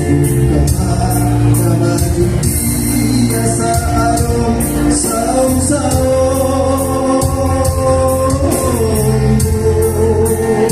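A man singing into a microphone over a Yamaha PSR-S775 arranger keyboard's accompaniment with a steady drum beat, amplified through PA speakers. The voice holds long notes, one sustained in the middle and then stepping down.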